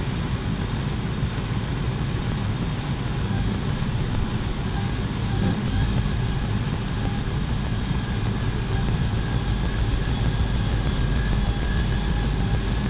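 A large engine running steadily: a low rumble with a faint, slightly wavering high whine over it.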